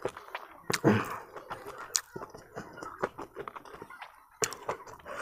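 Eating sounds of duck biryani eaten by hand off a banana leaf: chewing, with a run of small wet clicks and smacks and a louder one about a second in.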